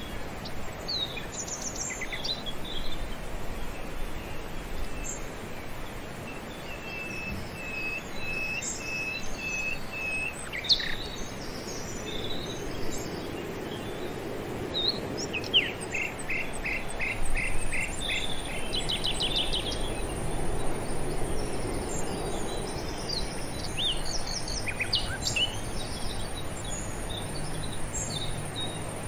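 Birds calling and chirping, including a run of evenly spaced whistled notes and later a quick series of notes, over steady outdoor noise. A high, steady insect drone comes in about halfway through.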